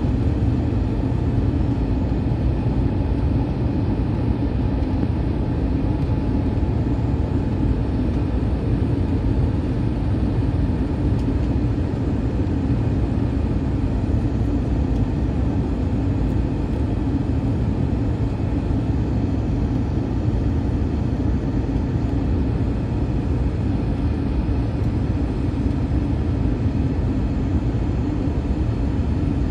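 Steady low drone of an Airbus A321 cabin on approach, heard from inside at a window seat, with a steady hum held at one pitch in it.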